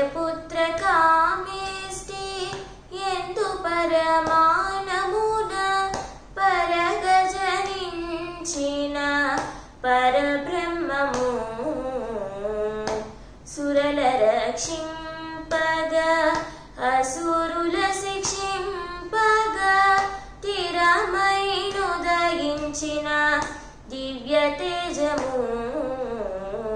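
A woman singing a Telugu devotional song solo, in melodic phrases of a few seconds with gliding, ornamented notes and short pauses between lines.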